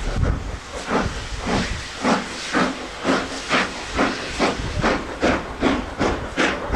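Steam locomotive pulling away with its coaches: a steady run of exhaust chuffs, about two a second, over a hiss of escaping steam.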